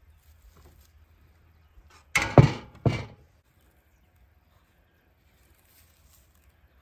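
Two heavy thuds about two seconds in, the second about half a second after the first.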